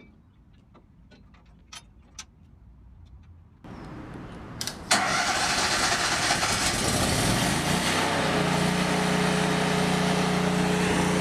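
A few faint clicks and knocks, then about five seconds in an engine starts. Its pitch rises over a couple of seconds as it picks up, then it runs steadily.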